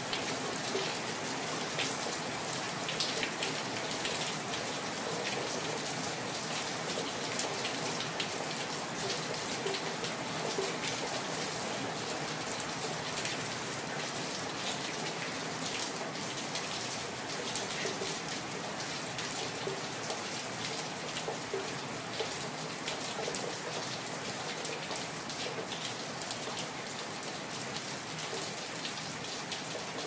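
Steady rain falling on an empty street, a constant wash of rain with many distinct drops ticking close by.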